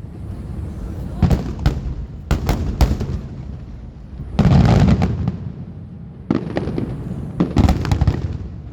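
Starmine fireworks: shells bursting in quick succession, a string of sharp booms with low rumbling echoes between them and a dense, loud cluster of bursts about halfway through.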